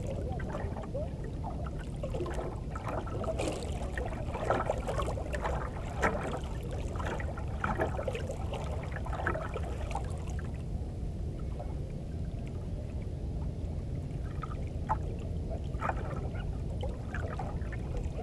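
Sea water lapping and splashing against the hull of a small fishing boat, in many short irregular splashes that thin out about halfway through, over a steady low rumble.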